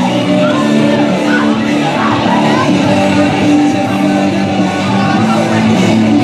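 Loud rock music with a heavy-metal edge: a wrestler's entrance theme.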